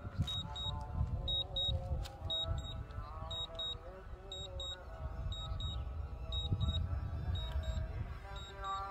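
A small quadcopter's propellers whir, their pitch drifting up and down, over low rumbling noise. A high electronic double beep repeats about once a second throughout.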